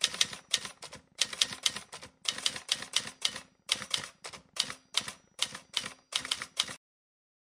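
Typewriter keystrokes clacking in an uneven run, about three a second with short pauses, stopping shortly before the end. This is a typing sound effect laid over on-screen text as it appears letter by letter.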